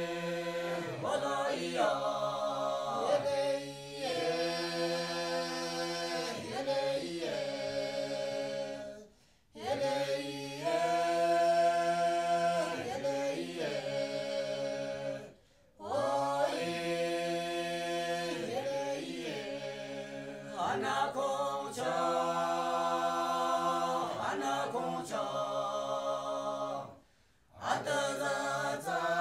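Background music of a cappella singing: voices hold long, steady chords in phrases of several seconds, with three short pauses between phrases.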